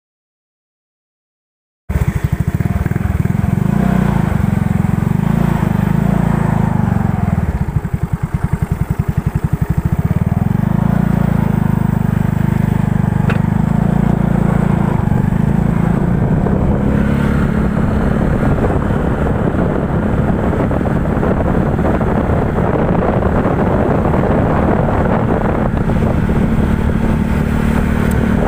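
Yamaha Mio Sporty scooter's single-cylinder four-stroke engine running loud through a kalkal (gutted) exhaust pipe, starting after about two seconds of silence. About a third of the way in it drops briefly to a lower, pulsing beat, then picks up and runs steadily.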